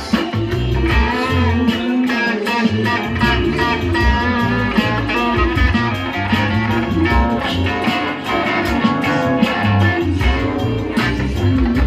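Strat-style electric guitar played through a small combo amp, over a backing track with bass and a steady beat.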